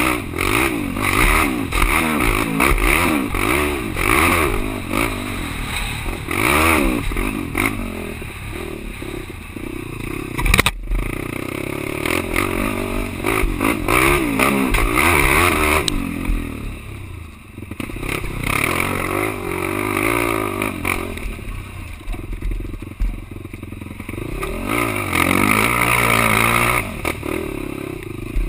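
Quad (ATV) engine revving up and down over and over as it is ridden, with frequent knocks and rattles and one sharp crack about ten seconds in.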